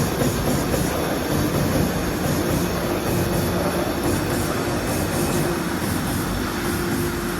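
AMADA EM-Z 3510 NT servo-electric turret punch press running, a steady dense mechanical rattle with a steady hum that comes in about four seconds in.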